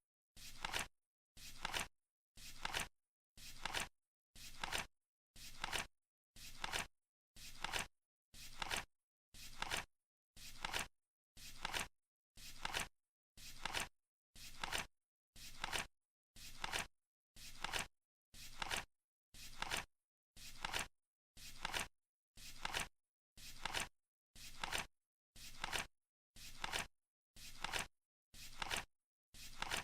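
Flip-clock timer ticking: a short flap ending in a click once every second, as the seconds card turns over in the countdown.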